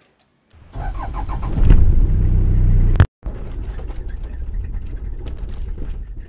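Vehicle engine starting about half a second in and revving up. After an abrupt cut about three seconds in comes the steady low rumble of the vehicle driving, with scattered faint knocks and rattles.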